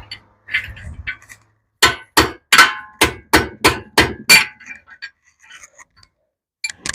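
A hammer striking metal with ringing blows, knocking a rusted, seized piston out of a Mopar 383 V8 block. A few lighter hits come first, then a quick run of about eight hard strikes at roughly three a second, then faint clinks and one more blow near the end.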